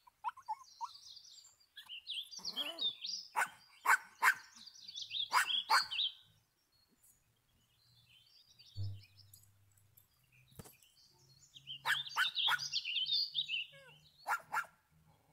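Pomeranian throwing a tantrum, yipping and squealing in high-pitched bursts, with a quieter lull in the middle.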